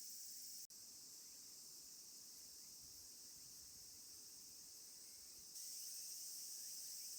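Faint, steady high-pitched insect chorus of summer outdoor ambience. It breaks off for an instant just under a second in and grows louder about five and a half seconds in.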